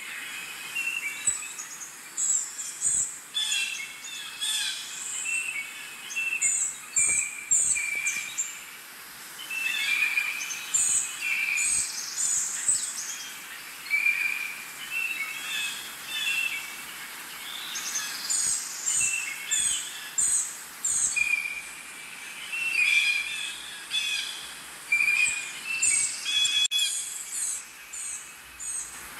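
Birds calling: short chirping and whistled phrases, repeated every second or two.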